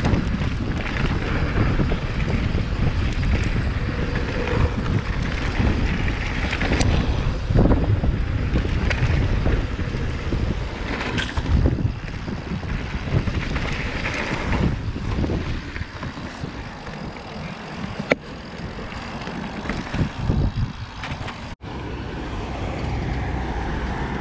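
Riding sounds of a Yeti SB150 mountain bike on a trail. Wind buffets the microphone over a constant rumble from the tyres, with irregular knocks and rattles from the bike over bumps.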